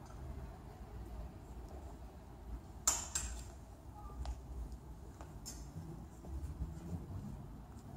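Clothes hangers clicking against a metal clothing rail as garments on it are handled and pushed along, with one sharp clack about three seconds in and a few lighter clicks after.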